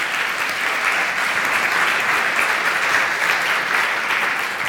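Audience applause closing a talk: many hands clapping steadily, easing off slightly near the end.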